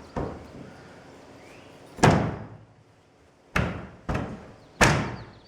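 Five hard bangs, each ringing briefly: a tight-fitting unit is knocked against and into a wooden framed wall opening that is too snug for it. The loudest bangs come about two seconds in and near the end.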